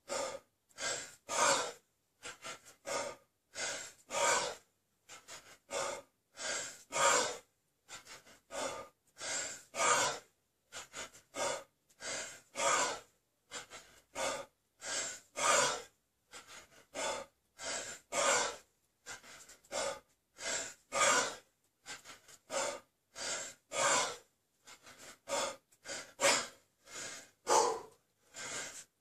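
Heavy, forceful breathing of a man working through a long set of kettlebell snatches: short, sharp breaths in and out in a steady rhythm that follows the swings.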